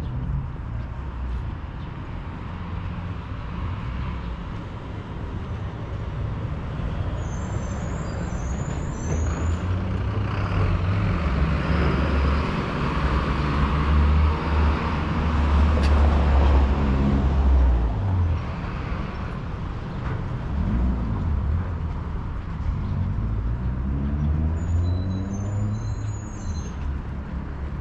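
Street traffic with a motor vehicle passing close by. Its engine rumble and tyre hiss build to a peak about halfway through and then fade.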